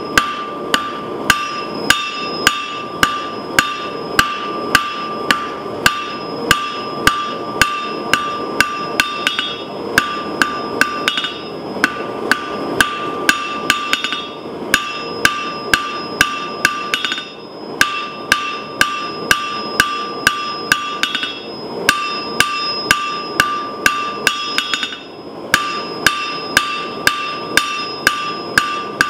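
Blacksmith's hand hammer striking hot thin steel rod on a steel anvil, about two blows a second, each blow followed by a bright anvil ring, with a couple of short pauses. A steady rushing noise runs underneath.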